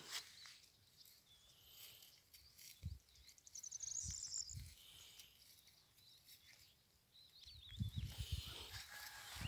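Near silence outdoors, broken by a few faint low rustles and thumps about three and four seconds in and again near the end, with a faint high chirp about four seconds in.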